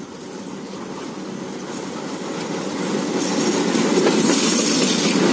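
Express train headed by two ALCO diesel locomotives approaching and passing: the locomotives and the wheels on the rails grow steadily louder, loudest from about three seconds in as the locomotives go by.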